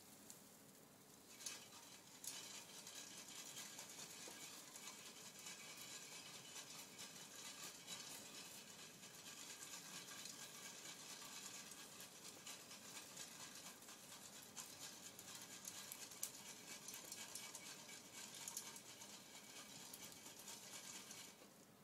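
Faint wood fire under a pan of roasting chestnuts: a steady hiss with many small crackling pops, starting about a second and a half in.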